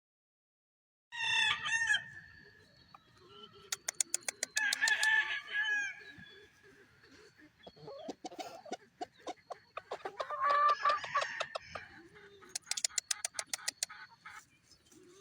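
Roosters crowing and clucking, with runs of sharp rapid clicks between the calls. The sound starts suddenly about a second in.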